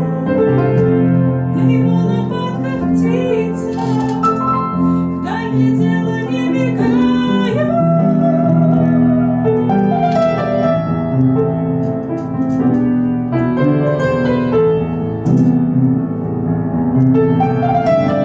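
Background music: a song with piano accompaniment and a melody line above it.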